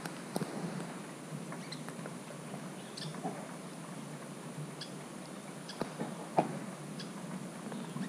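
Raindrops tapping at irregular moments on the GoPro 5's housing, over a steady hiss of rain; one tap a little past six seconds in is louder than the rest.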